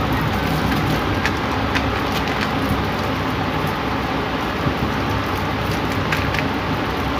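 Steady hiss-like background noise, with faint small clicks and smacks of someone chewing food close to the microphone.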